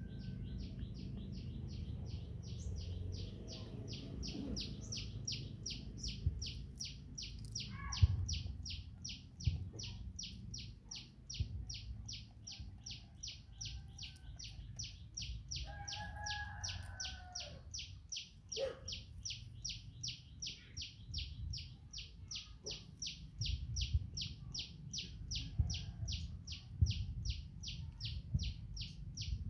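Steady, evenly repeated high-pitched chirping, two to three chirps a second, over a low outdoor rumble. A sharp knock comes about a quarter of the way in, and a short wavering call about halfway through.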